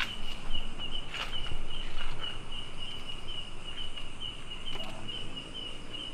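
Night insects chirping in a steady pulsed trill of about three pulses a second, with a few faint clicks.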